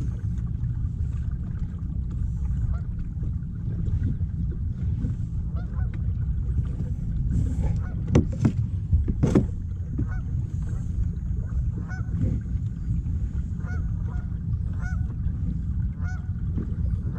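Birds calling in short repeated calls, about one a second, over a steady low rumble. A few sharp knocks about eight to nine seconds in are the loudest sounds.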